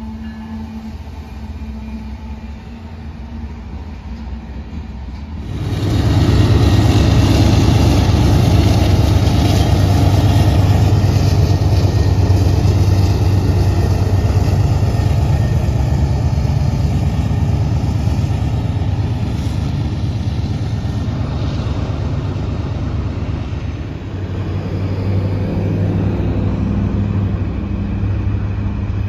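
Diesel freight train passing close: engine and rail noise swell sharply about five seconds in as the train comes alongside, then keep going loud and steady.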